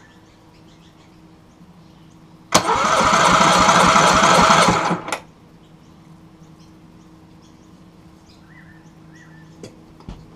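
Yamaha 50 HP four-stroke outboard's electric starter motor cranking the engine over with the spark plugs out, for a compression test with the throttle wide open. It cranks in one burst of about two and a half seconds with an even pulsing, stops abruptly, then gives one short blip just after.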